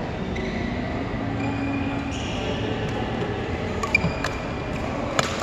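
Badminton rally: sharp cracks of racket strings striking the shuttlecock, a few about four seconds in and the loudest just before the end, over the steady background noise of a large sports hall.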